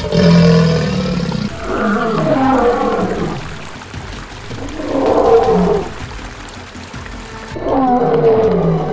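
Lion roaring: four long roars a couple of seconds apart, over background music.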